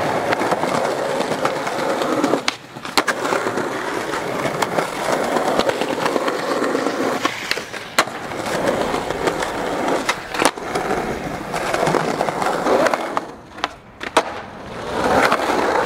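Skateboard wheels rolling over pavement, broken by several sharp pops of the tail and slaps of the board landing as tricks are done.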